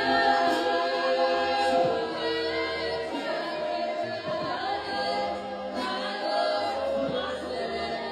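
Several voices singing a cappella in harmony, holding long notes.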